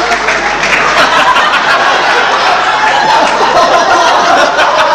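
Theatre audience laughing and clapping, with voices mixed in.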